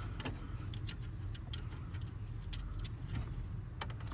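A few scattered light metallic clicks and ticks from hand work on a steering-column ignition switch and its mounting, over a low steady background hum.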